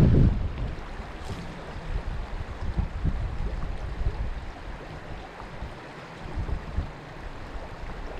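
Stream water rushing steadily, with wind gusting on the microphone. The loudest gust comes right at the start and dies down within about half a second.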